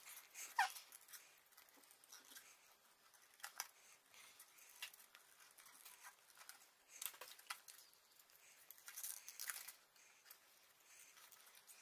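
Small scissors snipping through white card, a few faint irregular cuts, with light rustling as the card is turned between cuts.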